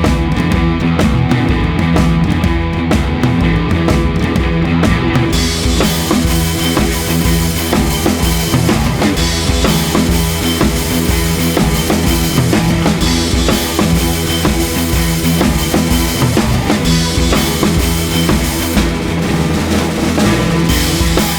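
Rock background music with a steady drum-kit beat; the drums and cymbals fill out about five seconds in.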